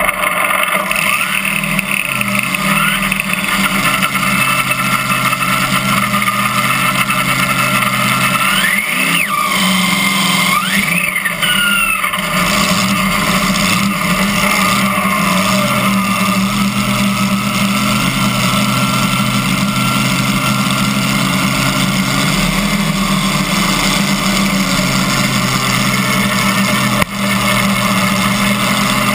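Supercharged V8 of a pulling tractor with open zoomie headers, idling steadily and loudly, with a few rising and falling whines about ten seconds in.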